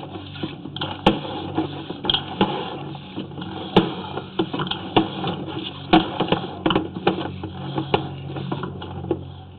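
Sewer inspection camera rig being pulled back through the line, with irregular clicks and rattles over a steady low hum.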